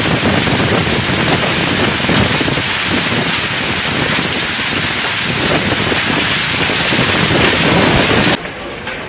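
Hailstorm: heavy hail and rain pelting down in strong wind, a loud dense hiss with gusts buffeting the microphone. Near the end it drops suddenly to a quieter hiss.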